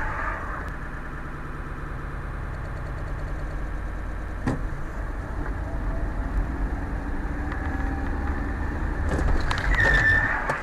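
Car engine and road noise heard from inside the cabin while driving in slow traffic, a steady low rumble. A sharp click about four and a half seconds in, and near the end a louder stretch with a brief high-pitched tone.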